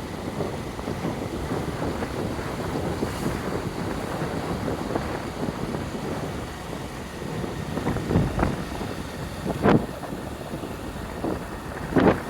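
Wind rushing over the microphone on a moving motorcycle, a steady rush with a few short, louder gusts or knocks in the second half.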